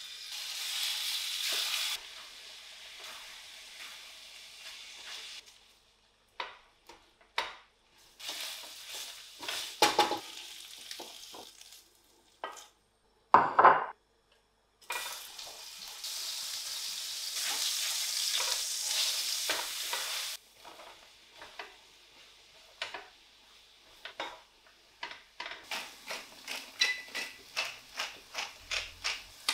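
Raw chicken pieces sizzling as they go into a hot stainless-steel frying pan, then frying while they are stirred and scraped with a wooden spatula, with a short loud burst midway and a fresh sizzle as more food goes in. Near the end, a wooden pepper mill grinds over the pan with quick, even clicks.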